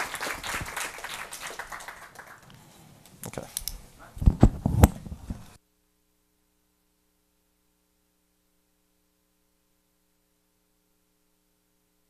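Audience applauding, fading out over the first two seconds. Then a few loud thumps from a handheld microphone being handled just after four seconds in, and the sound cuts off suddenly at about five and a half seconds, leaving only a faint mains hum.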